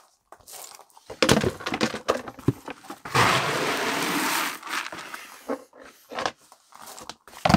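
Dry feed pellets rattling and pouring as a small rubber bucket is scooped into a tub of them. There are scattered knocks and rustles, and the longest, loudest rush of pellets comes about three seconds in and lasts over a second.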